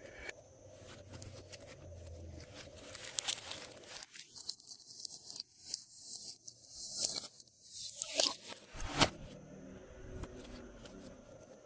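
Glossy slime being worked by hand, with sticky clicks, crackles and little tearing pops as it is squished and stretched. The loudest pops come about 7 and 9 seconds in.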